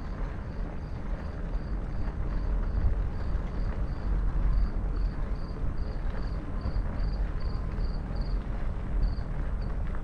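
Low, steady rumble of a Trek Farley 5 fat tire bike ridden slowly on a paved trail: wind buffeting the camera microphone over the roll of the 5-inch tyres. A faint high chirping pulses about two or three times a second through most of it and stops near the end.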